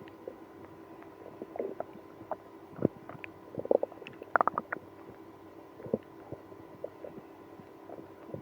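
Human stomach and bowel gurgling, a run of irregular short squelches and pops, loudest about three and four and a half seconds in. These are irritable-bowel sounds set off by drinking milk and prune juice.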